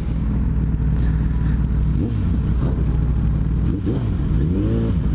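Motorcycle engine running at low revs in traffic, with a short rev that rises and falls near the end.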